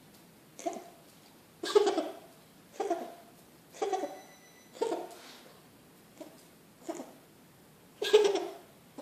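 A sick cat coughing in a hacking series, about nine coughs roughly a second apart, some stronger than others.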